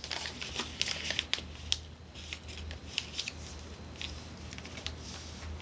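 A sheet of printer paper folded and creased by hand into a paper airplane's wings: a run of short, crisp paper crackles and rustles, several a second.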